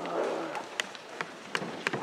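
A handful of sharp, irregular clicks and taps over low room noise, with a brief faint voice at the start.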